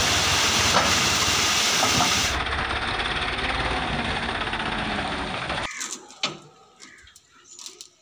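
Manufactured sand pouring off a tipped-up tractor trailer over a running tractor: a loud hissing rush with a low rumble. It cuts off abruptly about six seconds in, leaving a few scattered knocks.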